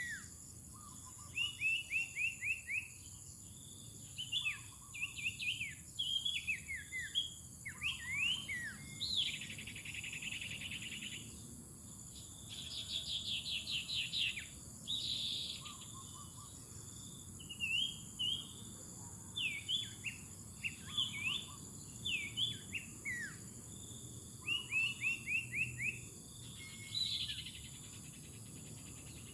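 Small birds calling in bursts of quick repeated chirps and short rapid trills, with pauses between the bursts, over a steady high insect drone.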